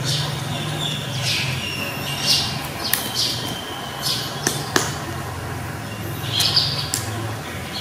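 A kitten playing with a wooden stick on a tiled floor: a string of short swishing and scraping sounds, with a few sharp taps about halfway through.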